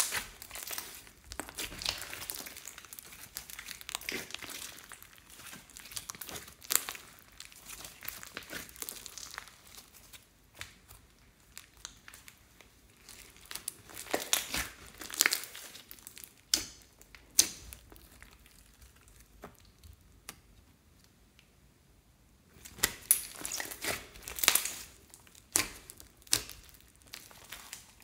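Hands kneading and squeezing a large lump of slime, its trapped air popping in irregular crackles and clicks. The crackling thins out for a few seconds a little past the middle, then comes back in a busy run of louder pops near the end.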